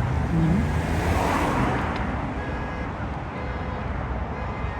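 Steady roadway traffic noise with a vehicle swelling past about a second in and a brief voice near the start.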